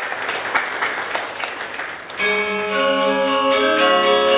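Audience applause, then about two seconds in a Balinese gender wayang ensemble of bronze metallophones starts playing: several ringing notes held together, one low note pulsing.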